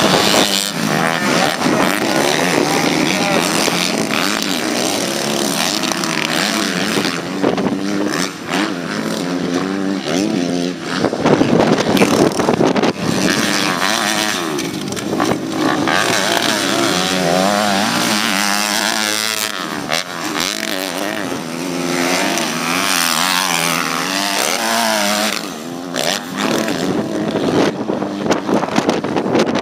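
Small-bore motocross bike engines revving hard and easing off as riders race past, the pitch rising and falling over and over through the jumps.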